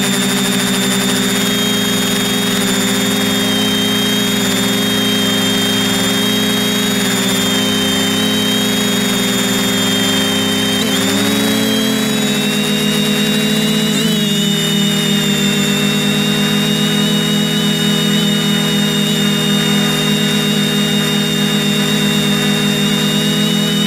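A drone's electric motors and propellers whining steadily, heard from the onboard camera, with several steady tones that shift in pitch about halfway through as the motors change speed.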